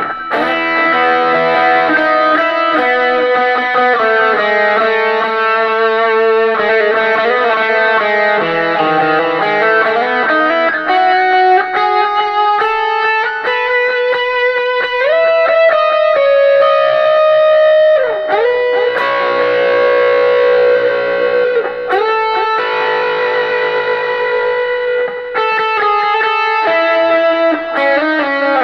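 Electric guitar played through a 1949 Gibson BR-9 tube amplifier with an overdrive pedal: a continuous, distorted run of notes and phrases, with bent notes sliding in pitch around the middle.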